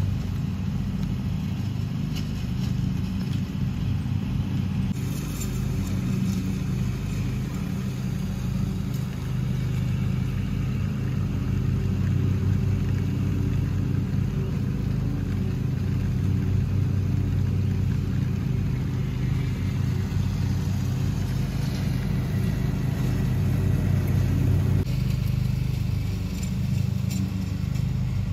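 Small utility vehicle's engine running steadily while it drives, its pitch shifting a little now and then.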